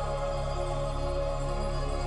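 Music for a contemporary dance solo: slow, held tones with no clear beat.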